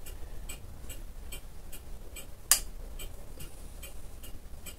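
Steady, fast, faint ticking, with one sharp metallic click about two and a half seconds in as the dividing head's spring-loaded index pin snaps into a hole in the index plate.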